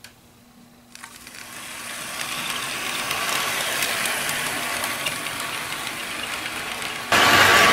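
Bachmann HO scale model train running on its track: the diesel locomotive's small motor and gearing and the cars' wheels making a steady mechanical rattle. It starts about a second in and builds as the train gets going, then jumps sharply louder near the end.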